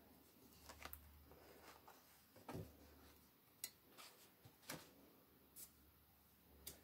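Faint paper rustles and soft flaps as the stiff, paint-layered pages of a Dylusions square art journal are turned by hand: about six short sounds, roughly a second apart.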